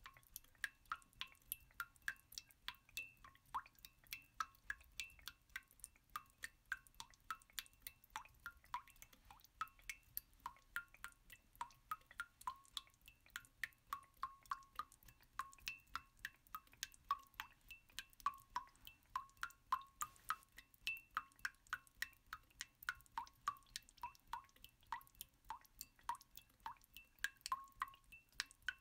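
Water dripping: a faint, steady run of irregular drip plinks, several a second, each ringing briefly at the same pitches.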